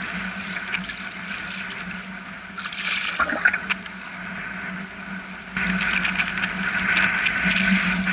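Choppy sea water lapping and splashing around a wader's legs, growing louder suddenly about five and a half seconds in.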